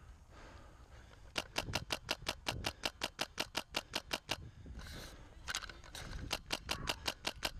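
Airsoft rifle firing rapid strings of shots, about ten a second: a burst of about three seconds starting a second and a half in, then a shorter burst near the end.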